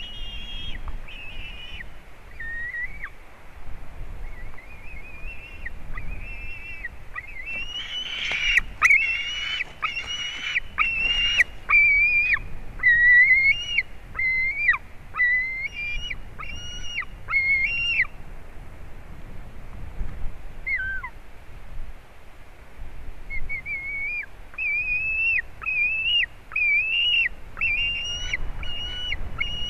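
Young white-tailed eagles calling: a long series of shrill, high-pitched piping calls, each a short note that rises and then drops. The calls are loudest and most crowded about a third of the way in, with a few short knocks among them. They pause for a few seconds about two-thirds through, then start again.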